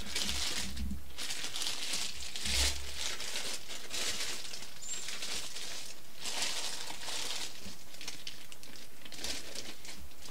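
Thin plastic bag crinkling in irregular bursts as a ball of dough is worked out of it by hand, with a couple of low thumps in the first few seconds.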